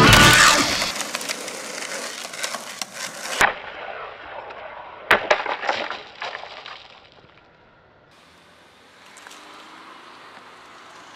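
Rock music cuts off about a second in. After it comes skateboard sound: the board's wheels rolling and the deck clacking sharply against the ground and ramp, with two loud knocks about three and a half and five seconds in. Near the end only a faint steady hiss is left.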